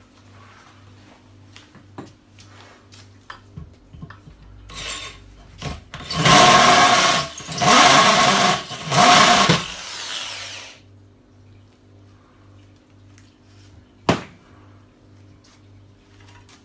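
Electric drill with a 35 mm hole saw cutting a tap hole through a resin basin. It runs in three loud bursts starting about six seconds in and winds down a few seconds later. A few light knocks come before it, and a single sharp knock comes near the end.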